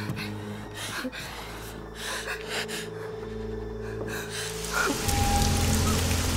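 Horror-film score: a low held drone under short, frightened gasping breaths. About five seconds in the music swells lower and louder and a steady rain-like hiss comes in.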